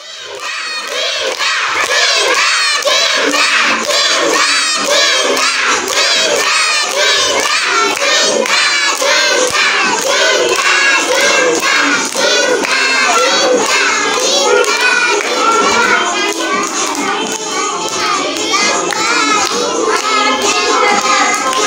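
A group of children's voices singing and shouting loudly together with a steady rhythm, fading up in the first second.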